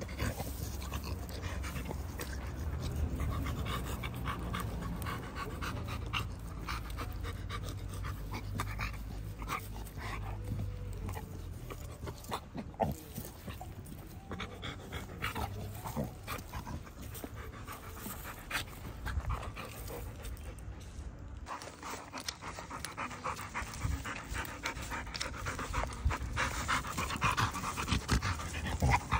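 A pit bull-type dog panting with its mouth open as it rolls on its back in dry dirt and leaves, with scuffling and crackling from its body and the leash on the ground.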